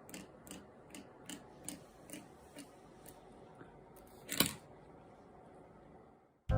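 Soft, evenly spaced clicks, about two to three a second, fading out after about three seconds, then one louder click about four and a half seconds in.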